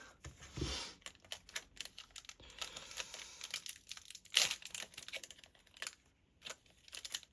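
Foil trading-card pack being torn open and its wrapper crinkled: a run of irregular crackles, with one louder crackle about four and a half seconds in.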